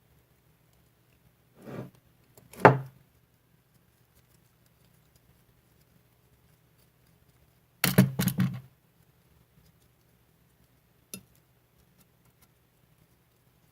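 Kitchen utensils and bowls being handled: a soft knock and then a sharp one about two seconds in, a quick run of clatters around eight seconds, and a small click near eleven seconds, over a faint steady hum.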